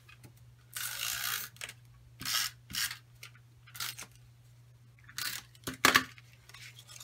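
Snail adhesive tape runner drawn along the edges of cardstock in a few short strokes, with the rustle of the paper. Near the end come a couple of sharp clicks, the loudest sounds here, as the plastic dispenser and card are handled.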